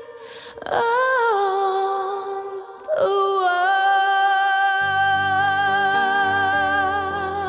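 Music: a singer holding long, high sung notes with vibrato, one after another with short breaths between. Low accompanying notes come in about five seconds in.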